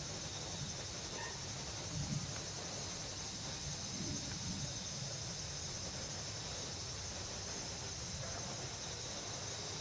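A steady, high insect chorus, with a few soft low bumps and rubbing in the first half as a cat's body brushes against the camera.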